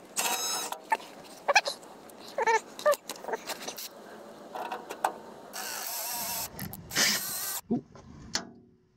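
Cordless drill/driver with a socket bit running in short bursts on a fastener in a thin aluminium underbody shield, with clicks and brief squeaks of metal on metal. Toward the end it runs more steadily for a couple of seconds, then stops.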